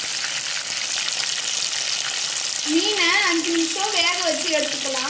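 Marinated kolakendai fish pieces deep-frying in hot oil in a pan, a steady sizzling hiss of bubbling oil. From about halfway through, a voice rising and falling in pitch sounds over the sizzle.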